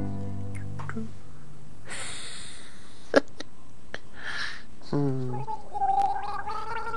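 A high cartoon voice gargling in a wavering, bubbling tone, starting about five seconds in and heard as an awful noise. Before it come short hissing noises and a sharp click about three seconds in.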